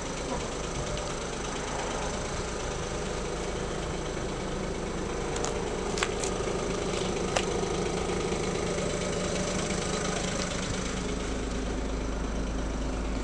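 Ford Focus 1.5 TDCi diesel engine idling steadily, with a few light clicks about halfway through.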